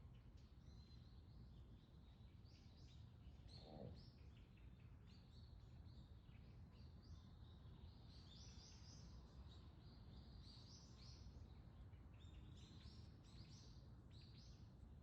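Faint chirping of small birds, many short high calls overlapping throughout, over a low steady outdoor rumble.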